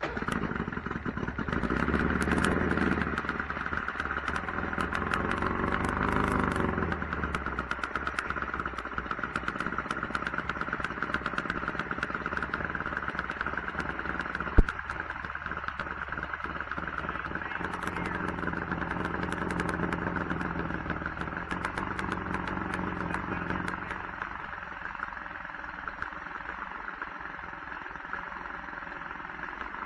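Mercury 500 50 hp two-stroke outboard motor running out of the water on a test run of its newly replaced water-pump impeller. It comes in suddenly at full level with a rapid crackle of firing, gives one sharp knock about halfway, and runs slower and quieter for the last few seconds.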